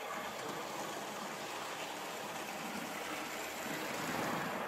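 OO gauge model diesel locomotive and coach running along the layout track: a steady whirr of the small motor and the wheels on the rails, a little louder near the end.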